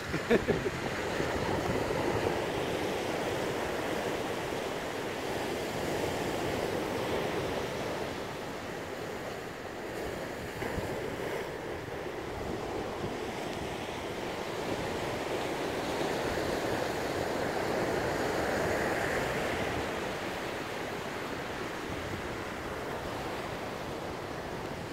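Ocean surf washing on a beach: a steady rushing noise that swells and eases slowly.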